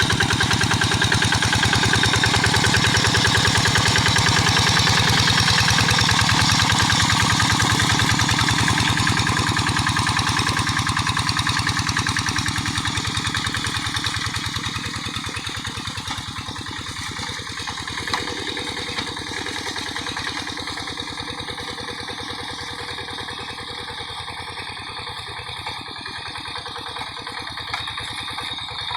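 Single-cylinder diesel engine of a Quick G1000 hand tractor running steadily while it harrows a muddy paddy. It grows fainter from a little under halfway through.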